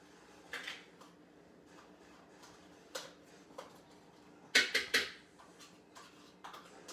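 Yogurt being emptied from its cup into a blender jar: a few scattered taps and scrapes, then a quick run of three sharp knocks, the loudest, about four and a half seconds in.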